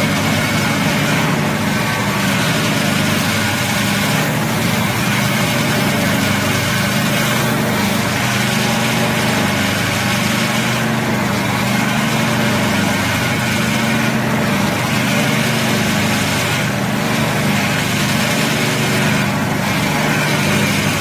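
Band saw cutting machine for tissue paper rolls running with a steady hum and hiss; the hiss dips briefly about every three seconds.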